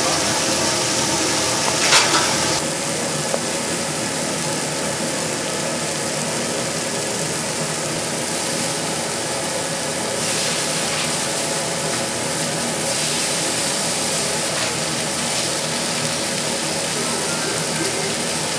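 Kitchen noise at a burger grill: a steady frying hiss over a steady mechanical hum, with a sharp clatter about two seconds in.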